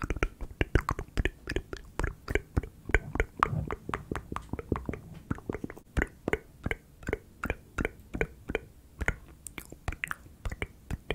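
Wet mouth sounds made close on a microphone: quick tongue clicks and lip smacks, several a second, in an unbroken run.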